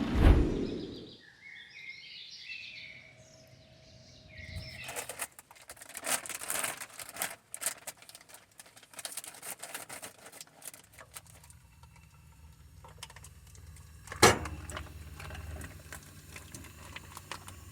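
A bird chirping in short calls for a few seconds, then scattered clicks and crackling, then a low steady hum with one sharp knock.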